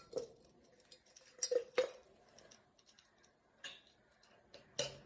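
A few light clinks and taps of glass and metal as a filter is fitted into the glass top bowl of a vacuum siphon coffee maker, about five separate knocks with quiet gaps between.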